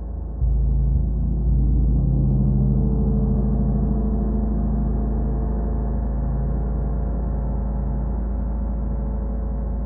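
A 40-inch Wuhan Feng gong is struck twice, about half a second and a second and a half in. It then rings on in a deep, steady wash of many tones that slowly fades.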